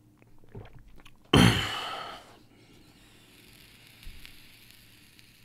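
A person exhaling a drag of vape vapour close to the microphone: a loud breathy exhale starting sharply about a second in, then trailing off into a soft breathy hiss.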